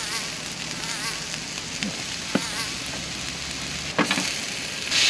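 Vegetables and rice sizzling on a Blackstone tabletop gas griddle in a steady hiss, with a few sharp clicks of a metal spatula on the griddle plate.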